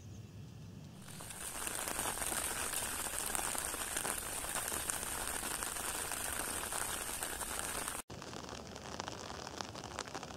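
Rain falling on a river's surface, a dense, even hiss of drops with fine crackle. It swells in about a second in and breaks off for an instant just after eight seconds before carrying on.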